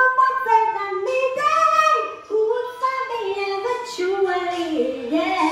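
A woman's voice singing wordless melismatic runs into a handheld microphone, amplified through a small Roland Cube amplifier. She holds long notes that glide up and down in pitch, with a short break about two seconds in.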